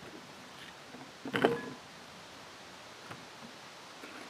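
A knife cutting apples on a wooden cutting board: a short knock about a second and a half in and a faint click later, over a quiet background hiss.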